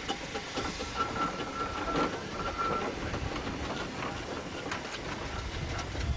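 Steam roller on the move: its steam engine running with a steady mechanical clatter and knocks, and steam hissing. A thin, steady high whine is heard from about one to three seconds in.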